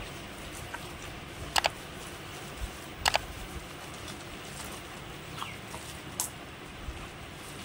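Wet squelching of ripe sugar palm fruit pulp being squeezed and rubbed by hand against a woven bamboo tray to press out the juice. It comes as a few sharp smacks, several of them doubled, over a steady low hiss.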